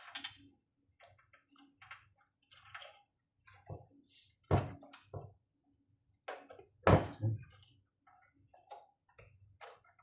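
Scattered small clicks and handling noises of flex ribbon cables being plugged into connectors on a patient monitor's circuit boards, with two louder knocks about four and a half and seven seconds in.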